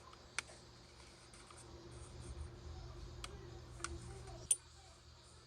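Four sharp plastic clicks from a scale model kit's parts and hobby tools being handled, the loudest near the end, over a faint steady hum.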